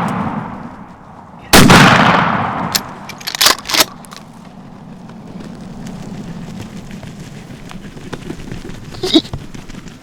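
Shotgun blast about a second and a half in, its echo rolling away over a couple of seconds, following the fading tail of a first shot fired just before. A few sharp short clicks follow soon after.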